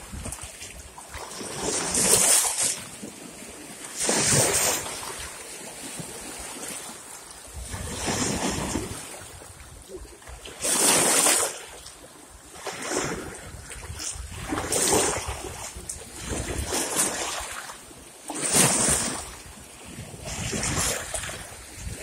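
Small waves splashing against shoreline rocks and the legs of a folding chair standing in the shallows. The splashes rise and fall about every two seconds, around nine in all, over a low wind rumble on the microphone.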